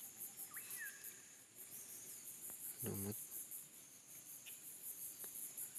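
Insects chirping in a steady, high-pitched, evenly pulsing drone, about five pulses a second, with a brief voice about three seconds in.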